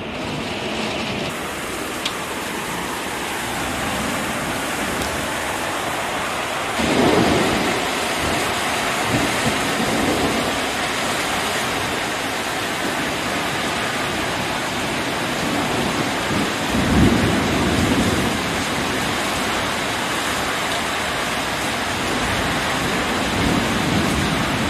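Heavy thunderstorm rain pouring down in a steady hiss that thickens about seven seconds in, with thunder rumbling several times over it, the strongest rolls about seven and seventeen seconds in.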